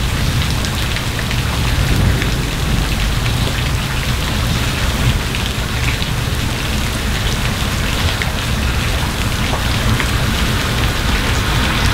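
Steady rain falling on the street and tree leaves, with scattered sharp drip ticks.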